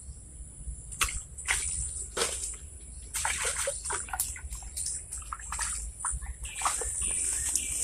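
Grass and brush rustling and crackling against a handheld phone as it is moved through dense vegetation beside a ditch, with irregular handling knocks. A steady high drone runs underneath, and near the end a run of short repeated chirps joins in.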